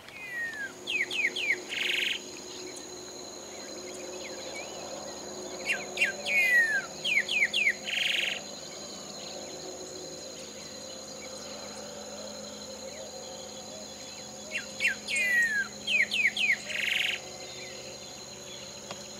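Greyish saltator singing three song phrases, each a run of quick downward-slurred whistles ending in a short harsh buzzy note. A steady high insect drone runs underneath.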